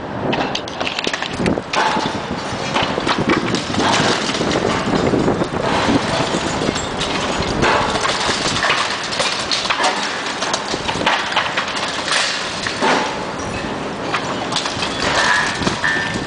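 Bricks and masonry rubble clattering and crashing down in a dense, irregular stream of knocks as a brick wall is knocked down.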